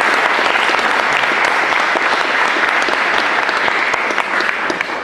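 Audience applauding with a dense, steady patter of many hands, which begins to die away near the end.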